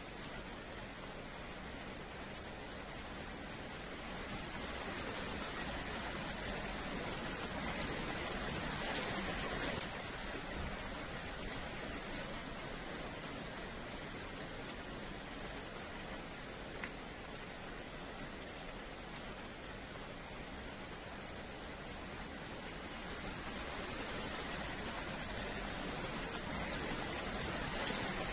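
Steady rain falling on wet paving, a dense even hiss that grows heavier twice, about a third of the way in and again near the end.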